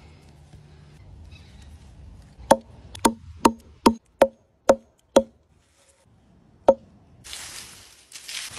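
A hatchet chopping through a bundle of dry twigs into a wooden board, eight sharp chops: seven in quick succession, then one more after a pause. Near the end a twig broom sweeps with a steady rustling scrape over dry leaves and dirt.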